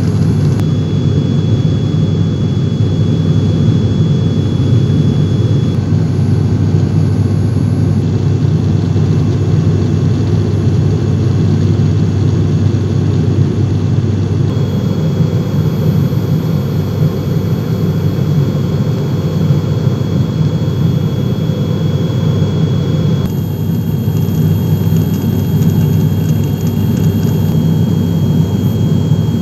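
Steady cabin drone of a turboprop airliner's engines and propellers in flight, heard from a seat beside the propeller, with a deep hum underneath. A faint high-pitched tone above it shifts abruptly a few times.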